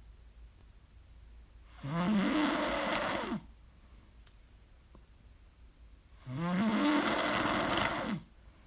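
A person snoring loudly: two long snores about four seconds apart, each starting low and rising in pitch, with quiet between them.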